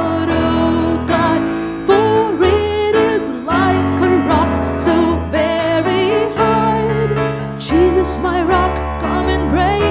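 A woman singing a worship song, accompanying herself on an electronic keyboard.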